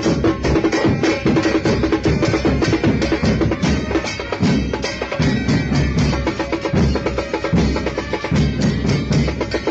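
Football supporters' drum band playing a fast, dense rhythm of rapid drum strokes. From about halfway through, deep bass-drum beats come in.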